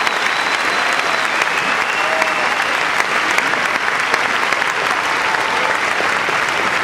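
Circus audience applauding steadily, with a few whistles rising above the clapping.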